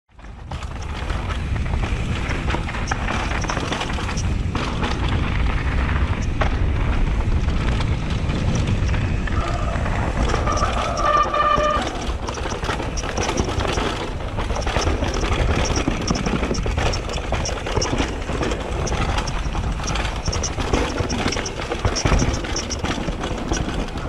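Trek Session downhill mountain bike clattering over roots and rocks: rattling parts, chain slap and tyres hitting the trail, as a continuous mass of knocks and clicks over a low rumble of wind on the camera microphone. A brief high squeal comes about ten seconds in.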